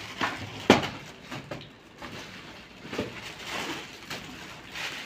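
Cardboard firecracker boxes and packets being handled and put down: scattered knocks and rustles, the loudest a sharp knock less than a second in.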